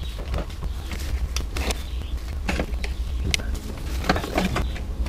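Scattered clicks and knocks of parts being handled as the engine control unit compartment in a car's engine bay is taken apart, over a steady low hum.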